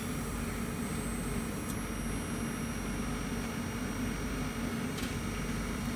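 Steady hum and hiss of a 1 kW handheld fiber laser welding machine standing by, its aiming beam on but not yet welding. Two faint clicks, one about two seconds in and one near the end.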